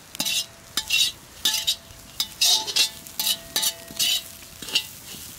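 Metal spatula scraping and stirring dried shrimp as it is dry-roasted with no oil in a black kadai: quick rasping scrapes, two or three a second, with the pan ringing faintly after some strokes.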